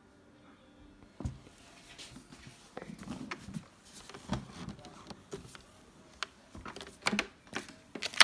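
Irregular knocks, clunks and clicks of things being handled and set down on a hard surface, with some rustling in between, starting about a second in.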